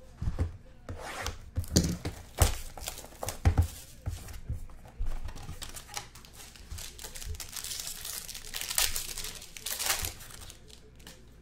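A trading-card box handled with a few sharp knocks, then a foil pack wrapper torn open and crumpled, crinkling for several seconds before it fades near the end.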